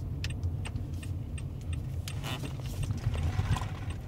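Inside a car's cabin while parking: the engine runs low and steady under an even ticking about two to three times a second, the turn-signal indicator clicking. A few light knocks of handling come in between.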